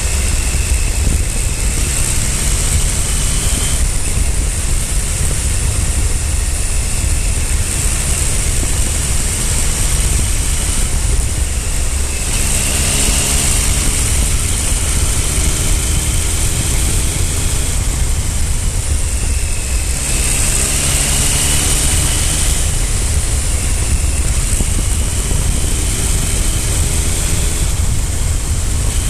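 Triumph Speed Triple 955i's three-cylinder engine under way, its pitch climbing over a few seconds and then dropping several times as it pulls through the gears. Heavy wind rumble on the microphone runs under it.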